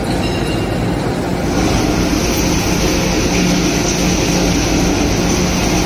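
Horizontal hammer mill crushing steel turnings: a loud, steady heavy-machine drone with a low hum, joined about a second and a half in by a harsher high hiss.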